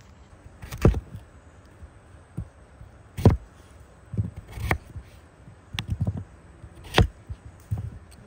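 A series of sharp knocks at an uneven pace: four loud strikes a second and a half to two and a half seconds apart, with softer knocks in between.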